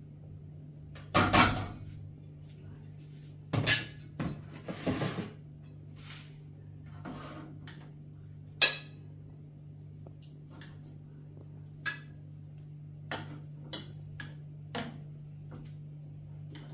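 Metal spoon clinking and scraping against pots, with the knock of a plate, as food is dished out at the stove: a scatter of sharp clinks and knocks, loudest about a second in and again around four to five seconds, over a steady low hum.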